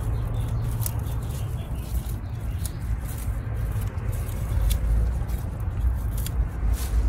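Wind rumbling unsteadily on the microphone, with a few light clicks scattered over it.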